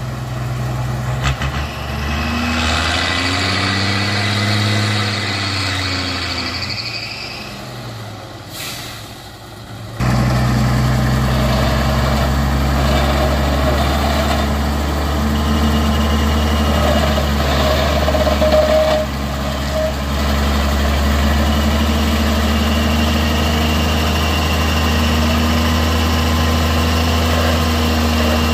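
Heavy vehicle engine working hard: its pitch rises and falls for the first several seconds, then it turns abruptly into a louder, steady low drone about ten seconds in.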